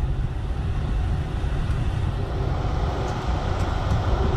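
Volkswagen Vento's air-conditioning blower fan running at a raised speed inside the cabin, a steady rush of air that grows a little fuller about a second and a half in, over the low hum of the idling petrol engine.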